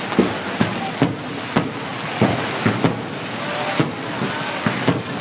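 Fireworks display: an irregular run of sharp bangs and cracks, roughly two or three a second, over a steady background din.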